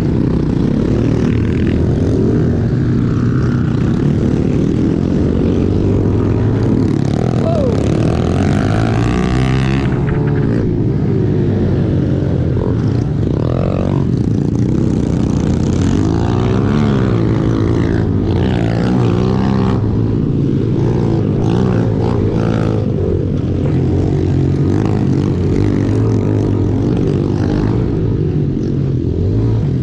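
Small single-cylinder pit bike engines racing close by, led by the rider's own bike, its pitch rising and falling again and again as the throttle opens and closes through the corners.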